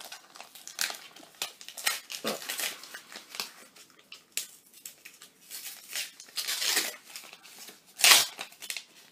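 Crinkling and tearing of a sealed collection-photo packet being worked open by hand, in irregular rustles and rips, the loudest rip about eight seconds in. The packets are hard to get open.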